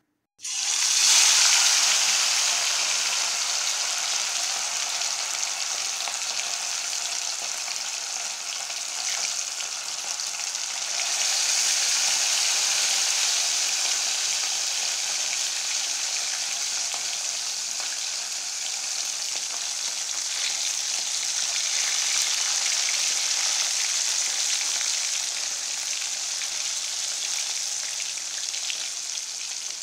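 Masala-coated rohu fish pieces deep-frying in hot oil in a steel kadai: a loud, steady sizzle that starts suddenly about half a second in as the fish goes into the oil, and swells again about eleven seconds in.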